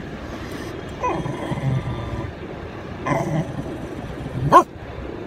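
A dog inside the car whining and yipping in three short cries: one about a second in, another about three seconds in, and the loudest, a sharp rising yelp, just before the end.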